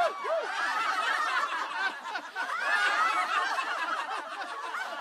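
A group of men and women laughing together, many voices overlapping throughout.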